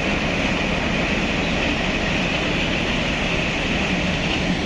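PHA-20 diesel-electric locomotive running light as it moves off, its diesel engine and running gear giving a steady noise.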